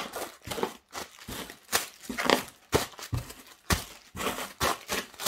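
Packing material being handled and pulled from a parcel: irregular crinkling and rustling with several sharp handling noises.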